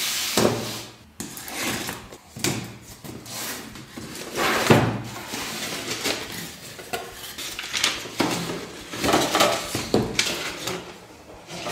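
Cardboard box being handled and opened: knocks, scrapes and rustling of cardboard and paper packing, with one louder knock a little before the middle.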